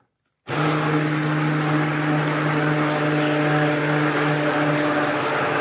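Electric stick blender running steadily in a plastic bucket of soap batter, with a constant motor hum. It starts about half a second in, blending the used-cooking-oil and lye mixture toward trace.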